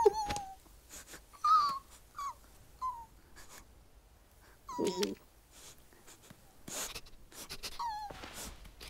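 A cartoon squirrel's squeaky vocal noises: a string of short, high squeaks and whimpers, each falling in pitch, a second or more apart, with soft rustles and clicks between them.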